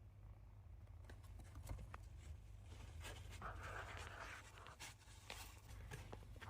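Faint scratching and small light clicks from a golden hamster moving about, with a longer scratchy rustle in the middle.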